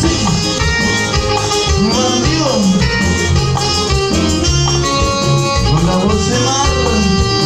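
Live cumbia band playing: electric guitar, bass, keyboards and drums over a steady beat, with a singer's voice on top.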